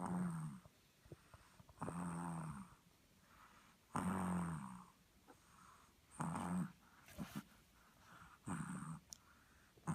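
A sleeping pug snoring, about five snores roughly two seconds apart, each a short rasping snore.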